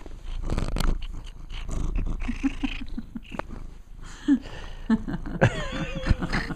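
Tabby cat purring right against the microphone, with its face and fur rubbing over it. About five seconds in comes a held, higher-pitched note lasting about a second.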